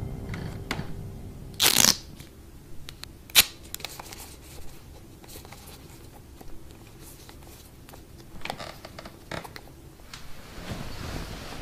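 Quiet room with scattered soft rustles and a few sharp clicks: a brief rustle near two seconds in, one sharp click about a second and a half later that is the loudest sound, and more faint rustling and clicks near the end, as the tail of dark, tense film music fades out at the start.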